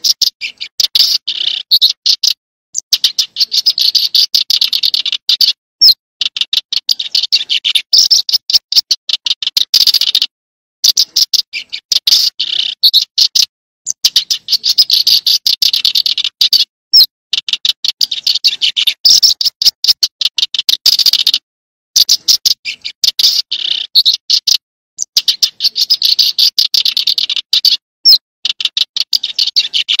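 Prinia song: rapid, dry ticking trills in phrases of one to three seconds with short breaks, and now and then a single short slurred note, repeated over and over.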